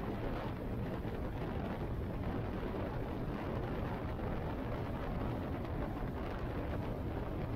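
Motorcycle riding at speed: a steady rush of wind buffeting the microphone over the low rumble of the bike.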